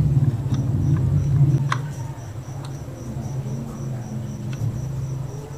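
A high, thin insect chirping in even pulses, about four a second, over a low steady hum that is loudest in the first two seconds. A few light clicks come from hands handling wires.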